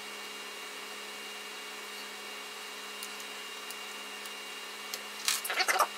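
Small hand tools and wires being handled on a workbench: a few faint ticks, then a quick cluster of sharp clicks near the end, over a steady faint electrical hum and hiss.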